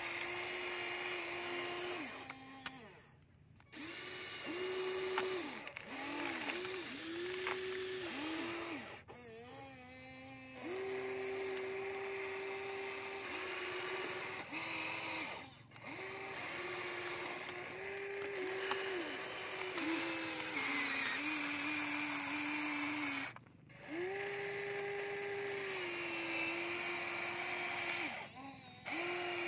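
Electric motors of a Huina remote-control toy excavator whining as it works the boom and bucket, starting and stopping over and over, with a short slide in pitch as each run starts and ends. The whine drops out briefly a few times.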